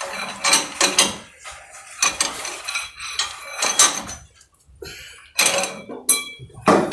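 Small hammer striking the steel of a truck's front hub assembly: an irregular series of sharp metallic clanks with ringing. These are blows meant to knock loose a stuck hub part that will not budge.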